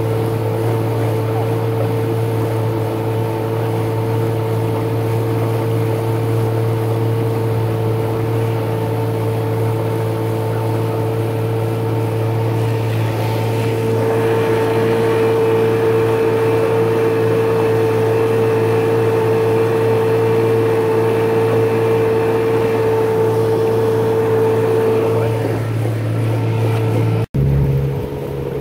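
Small motorboat's engine running steadily under way, a constant droning hum with a steady higher tone over it, growing louder about halfway through. A sudden break comes near the end, after which the engine note is lower.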